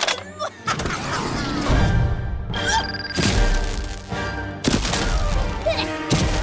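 Cartoon action music with several sudden crash and impact sound effects about a second apart, and a few short gliding effects.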